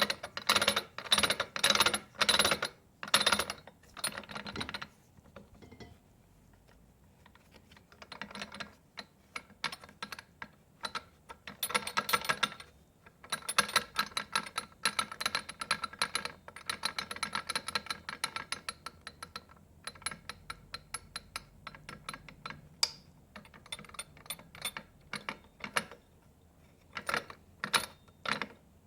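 Rebuilt Triumph Spitfire gearbox being spun, its gears giving a fast metallic clicking rattle that comes and goes in bursts of a few seconds. The noise is what the owner finds wrong with the rebuild.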